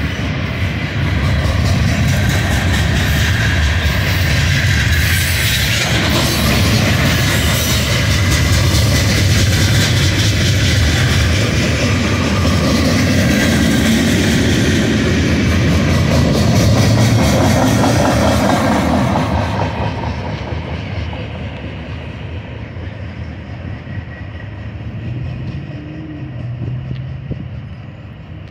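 Freight train of Herzog ballast hopper cars rolling past close by, a loud steady rumble and rattle of steel wheels on the rails. After about twenty seconds the sound fades as the end of the train pulls away.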